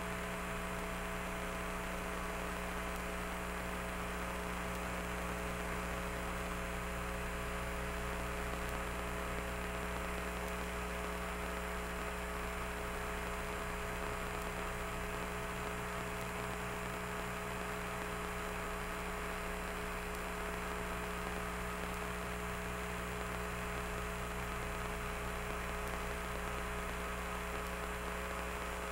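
Steady electrical hum with a layer of static hiss: several fixed tones held without change, and no other sound.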